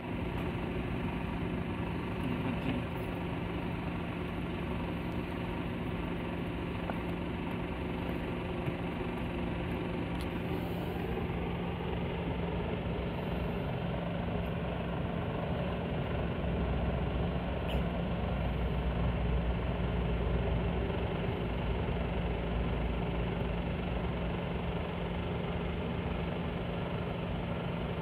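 Steady drone of vehicle engines idling, with one constant hum throughout and a deeper rumble that swells for a few seconds past the middle.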